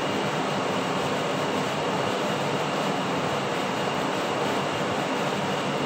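Steady, even rushing noise with a faint high whine, unchanging throughout.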